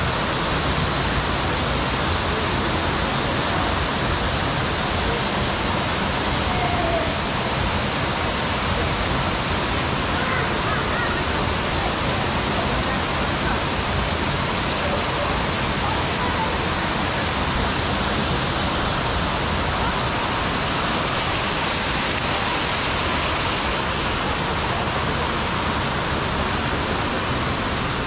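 Steady rush of a waterfall, an even, unbroken roar of falling water.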